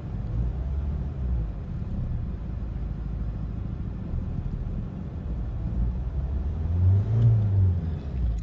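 Renault Megane 1.5 dCi four-cylinder diesel engine idling, with a brief rev near the end that rises and falls back. It seems a little rough after a used replacement injector was fitted to cylinder 3.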